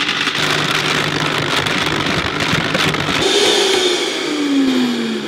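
Vitamix high-powered blender running at speed, grinding whole almonds with coconut oil into almond butter while the tamper pushes them down, a loud rattling roar of nuts against the jar. Over the last two seconds the motor's pitch falls steadily as it slows.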